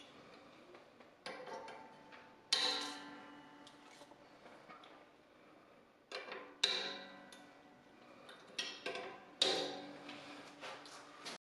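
Banjo strings plucked and strummed in a loose series of bright, sharp notes and chords, each ringing out and fading before the next. The sound cuts off suddenly near the end.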